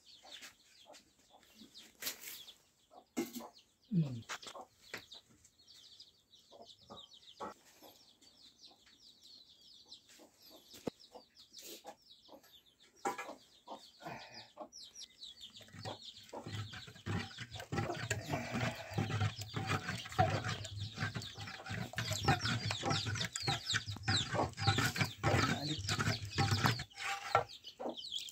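Chickens clucking, with scattered short clicks and knocks; the calling gets busier and louder about halfway through.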